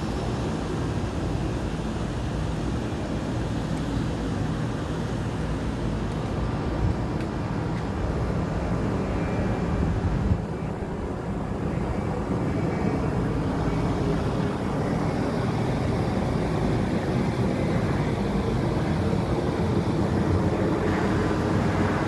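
Airplane passing overhead: a steady low drone with a hum in it. There is a brief knock about ten seconds in.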